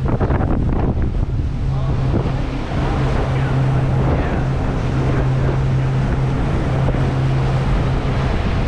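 A tour boat's engine running with a steady low hum, under heavy wind noise on the microphone and the wash of water.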